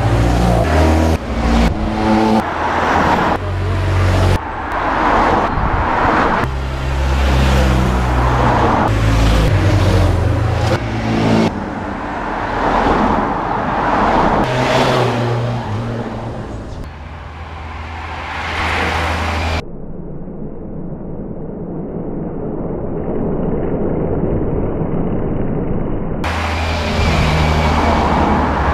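A convoy of cars and motorcycles passing close one after another, each pass a swell of engine and tyre noise. The traffic thins briefly a little past the middle.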